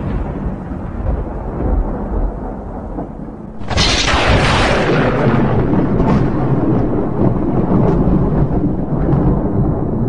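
Thunder rumbling from a storm overhead, with a sudden loud thunderclap about three and a half seconds in that rolls on into a long, crackling rumble.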